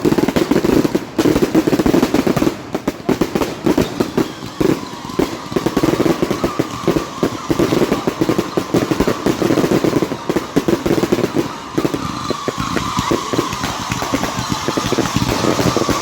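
Fireworks crackling and popping in a dense, rapid stream of small bangs. A faint steady high whine joins about four seconds in.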